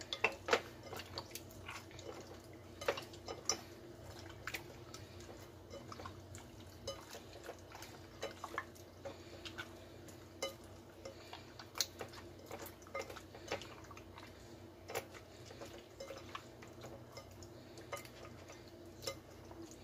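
Hands kneading pork chops in a wet soy sauce marinade in a glass bowl: irregular soft squishes and small clicks, the meat and fingers now and then tapping against the bowl. A steady low hum runs underneath.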